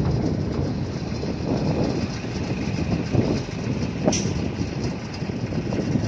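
Small crawler bulldozer's diesel engine running as the machine travels, its steel tracks clanking and rattling. A brief sharp metallic sound cuts through about four seconds in.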